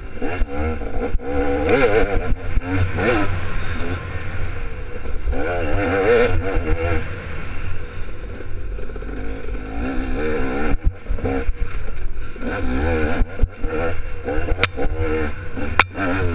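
Dirt bike engine revving up and down repeatedly as the bike rides a rough trail, under a constant low rumble of wind on the helmet microphone. Two sharp clicks near the end.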